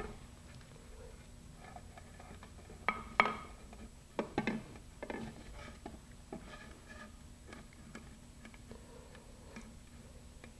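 Handling of a fiberglass nose cone on a tabletop while epoxy clay is pressed into its base: a few sharp knocks and taps between about three and five seconds in, then faint scattered ticks.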